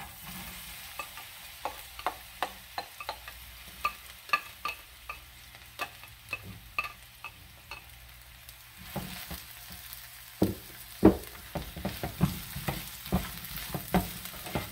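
Chopped onion sizzling as it goes into hot oil in a nonstick frying pan. A spatula scraping the onion out of a glass bowl makes many light clicks at first, the sizzle grows fuller at about nine seconds as the rest of the onion lands, and then the spatula stirs it with louder knocks against the pan.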